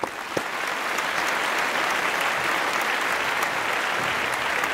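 Applause: many hands clapping in a dense, steady stream.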